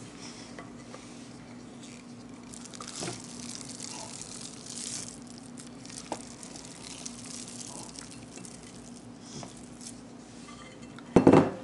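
Soft, wet squishing and scraping as raw ground-beef meatloaf mixture slides from a glass bowl into a metal springform pan and a rubber spatula scrapes the bowl, with a few faint taps, over a faint steady hum. A brief louder sound comes near the end.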